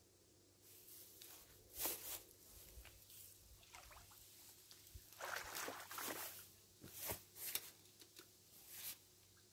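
Faint, irregular rustling with a few soft knocks: someone moving and handling things right next to the microphone, in short scattered bursts with the busiest stretch a little past the middle.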